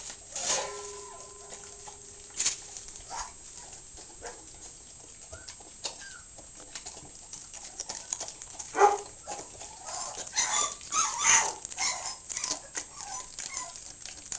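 A dog chewing and licking raw chicken breast: irregular wet smacking and crunching clicks, busiest in the second half. A faint thin whine runs under the first few seconds.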